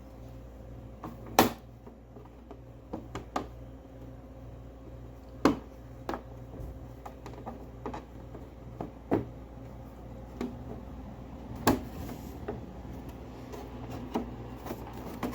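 Plastic motorcycle cowling panel being worked back into place: scattered sharp clicks and knocks as its tabs are slid and pushed into their slots, the loudest about a second and a half in and near twelve seconds, over a low steady hum.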